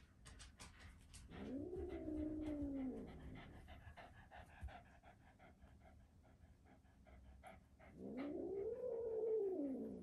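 Black kitten giving two long, low growls, each rising and then falling in pitch, with short clicks between them: a defensive warning growl at the other cats.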